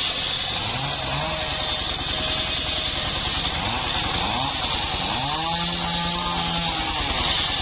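Engine-driven wood saw of a travelling sawmill running steadily with a high whine, cutting mahogany. Its pitch dips and recovers a few times, most clearly about five to seven seconds in.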